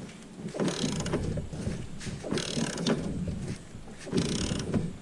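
Socket ratchet clicking in short bursts as a bolt is turned with it.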